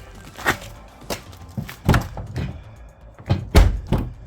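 Sheet-metal bodywork on a crash-damaged 2004 Honda CR-V door area being forced out by hand: about six heavy, irregular thunks and knocks, the loudest a little after three seconds in.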